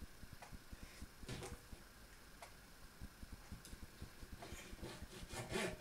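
Quiet handling sounds of food preparation at a table: soft clicks and rustles as tomato is taken from a foil tray onto dough and a knife works on a plastic mat. A louder brief crinkle or scrape comes near the end, over a faint, fast low ticking.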